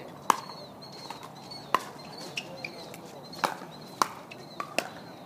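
Pickleball paddles striking the hard plastic ball: sharp pops at irregular intervals, the loudest just after the start, with faint high chirps between them.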